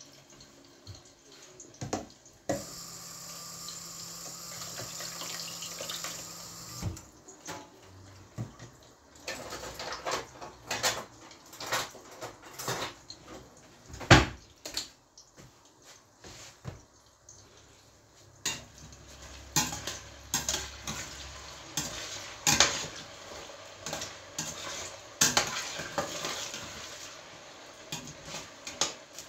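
Metal pots and utensils clinking and clattering in a kitchen: scattered knocks and clicks, the loudest about 14 seconds in, with a steady rushing noise for a few seconds early on.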